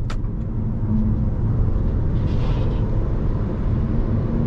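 Steady low rumble of road and engine noise inside the cabin of a Jeep Renegade T270 at highway speed, with faint hiss above it. There is a single sharp click at the very start.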